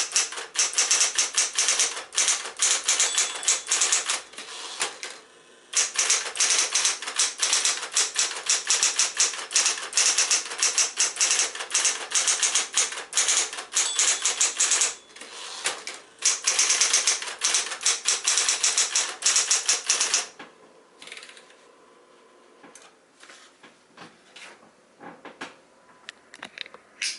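Singer T82 electric portable typewriter, a mid-1960s Smith-Corona build, typing in fast runs of keystrokes with two short breaks. About twenty seconds in, the typing gives way to a few scattered, quieter clicks over a faint steady hum, with one sharp clack near the end.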